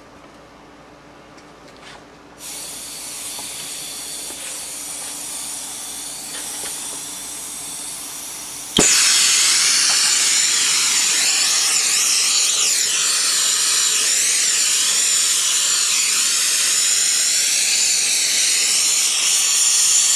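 Gas torch being lit and run to heat a cast-iron gear for silver brazing: a steady hiss of gas starts a couple of seconds in, a sharp pop about nine seconds in as it lights, then the flame runs loud and steady.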